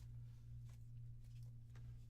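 Near silence: a steady low hum, with two faint light clicks of trading cards being handled.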